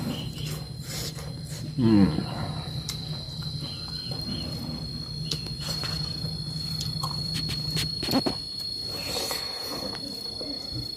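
Steady high-pitched insect drone, like a cricket, over a low hum that fades about eight seconds in. About two seconds in there is a brief loud pitched call with a wavering pitch, and a sharp knock comes near eight seconds.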